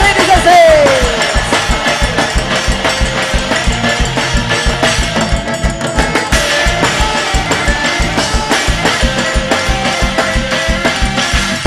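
Band music with a steady drum-kit beat. A sung note slides down and fades out in the first second, leaving the band playing on.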